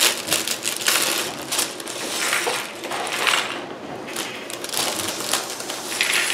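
Small plastic LEGO pieces tipped out of a bag, clattering and rattling onto a hard tabletop in a rapid scatter of clicks, with the plastic bag crinkling as it is shaken out.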